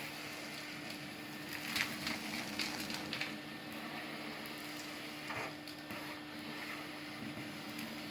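Numatic SSMF350 industrial vacuum cleaner running steadily on its low setting, with a few short crackles about two, three and five seconds in as grit and debris are drawn up the hose.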